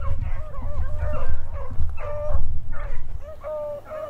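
Pack of beagles baying while running a cottontail rabbit: overlapping short bawls in quick succession. A low rumble on the microphone runs under the baying and stops about three seconds in.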